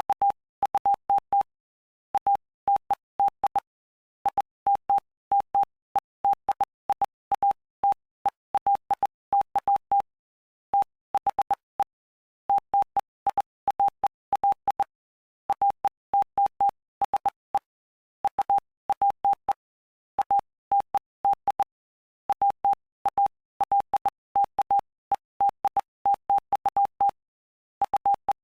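Morse code sent as a single steady mid-pitched tone, keyed in dots and dashes grouped into letters and words with short silent gaps between, each element with a faint click at its edges. It spells out the text of Mark chapter 5.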